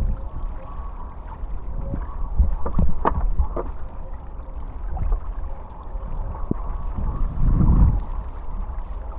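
Wind buffeting the microphone over rushing, splashing water during a downwind hydrofoil board ride. The low rumble swells and eases with the gusts, and a few sharp splashes come about three seconds in.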